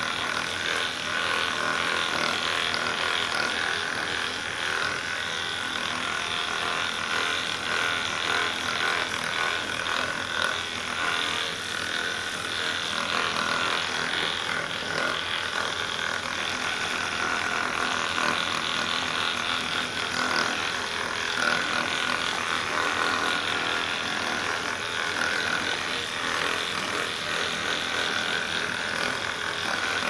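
Handheld percussion massage gun running steadily with a high motor whine, its head pressed against the back of the thigh through denim jeans.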